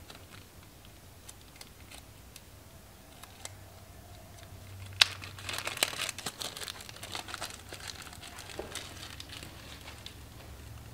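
Small clear plastic parts bag crinkling as it is handled. There is a sharp click about five seconds in, then a few seconds of steady crinkling that dies down.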